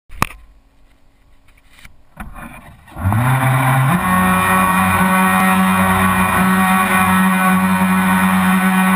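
Radio-controlled model boat's motor, heard from on board, starting about three seconds in after a couple of knocks, rising in pitch within a second and then running at a steady speed as the boat drives off.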